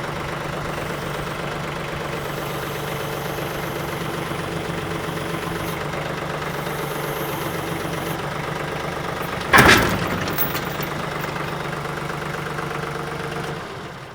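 TYM 2515H compact tractor's diesel engine running steadily while straining to lift a 1,726-pound load on the loader forks. A single sharp, loud noise comes about ten seconds in, and the engine sound dies away near the end.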